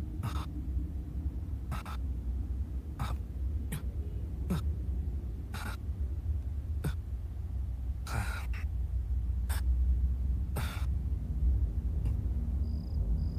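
A man breathing hard in distress, with about a dozen sharp, irregular gasps, sniffs and throaty sobs, over a low steady hum.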